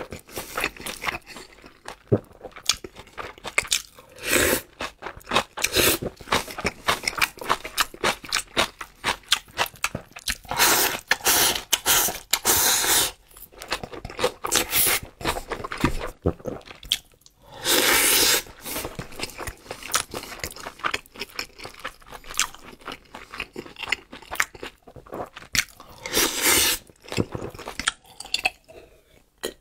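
Close-miked mukbang eating: a man chewing mouthfuls of crayfish rice, with a rapid run of wet mouth clicks and several longer, louder bursts of noise between short pauses.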